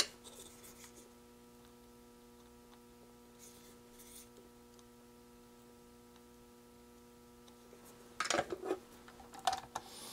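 Small electronic kit parts handled on a workbench: a sharp click at the start, a little faint scraping, then a louder flurry of scraping and rustling near the end, over a faint steady electrical hum.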